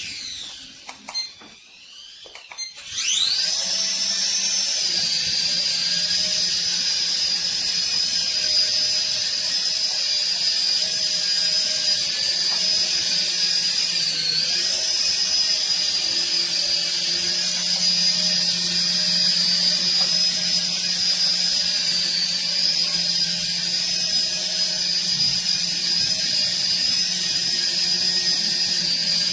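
Small electric motors of a toy RC helicopter spinning its rotors: a high-pitched whine that spools up about three seconds in, then holds steady, dipping briefly now and then.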